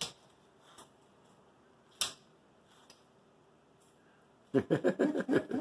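Puppy yapping at an adult dog in a quick run of short barks, about seven a second, starting near the end; a single knock about two seconds in.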